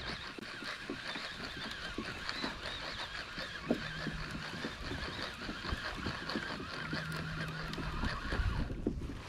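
A flock of birds calling over open water: a dense, continuous chorus of many overlapping calls that cuts off suddenly near the end.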